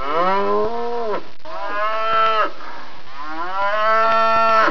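A cow mooing: three long moos one after another, each held for about a second before trailing off.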